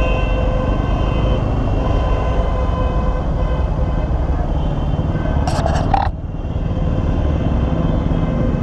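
Bajaj Pulsar NS200 single-cylinder engine with an aftermarket exhaust, running steadily while the motorcycle is ridden, with wind noise. A brief rasping noise comes about five and a half seconds in, after which the sound drops a little quieter.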